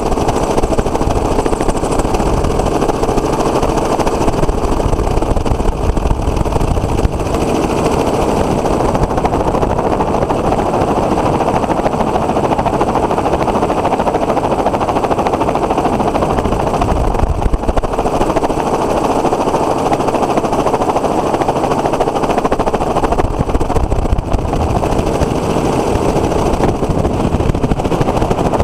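Helicopter in flight, heard from aboard: loud, steady rotor and engine noise with a faint constant drone.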